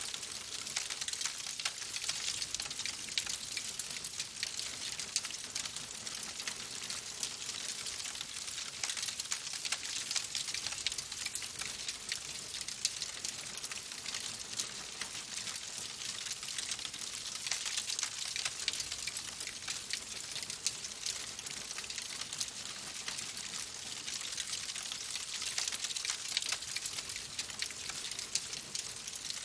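Wood fire burning in a fireplace, crackling steadily with a dense stream of small pops and snaps over a soft hiss.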